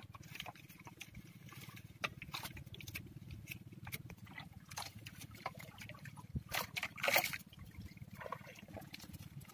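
Sea water sloshing and trickling against the hull of a small outrigger boat, with scattered short rustles and clicks as a bundle of dry fronds is handled, a few of them louder near the end.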